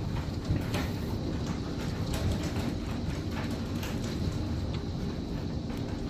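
Thunderstorm with strong wind and a heavy downpour of rain and hail: a steady low rush, with many scattered sharp ticks of hailstones hitting surfaces.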